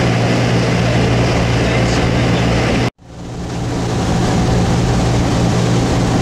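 A boat's engine runs with a steady low hum under the rush of water and wind. It cuts off abruptly about three seconds in and fades back up within a second.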